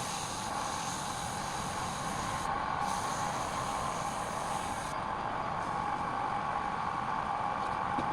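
Wood lathe running steadily: an even mechanical whine with a hiss over it.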